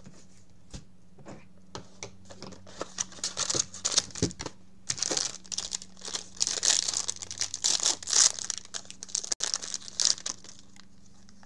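A Topps Tier One baseball card box being handled and its foil pack torn open and crinkled by hand. Scattered rustles and clicks give way to a denser stretch of crinkling about halfway through.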